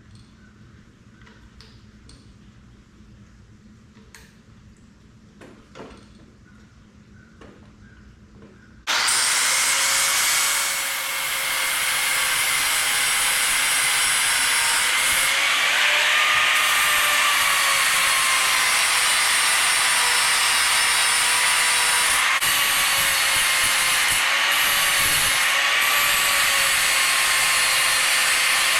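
A few faint handling clicks, then about nine seconds in a power cutting tool starts and runs steadily with a high whine that wavers slightly under load. It is cutting off seized bolts that would not turn, which the mechanic suspects were cross-threaded.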